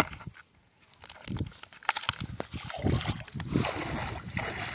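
Shallow muddy canal water sloshing and splashing as someone wades and works a long-handled tool through it. A few knocks and thumps come first, and the splashing sets in about three seconds in.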